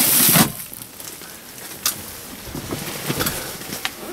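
Protective bubble wrap and plastic sheeting crinkling under a hand, loudest in the first half second, then quieter rustling with a few small clicks.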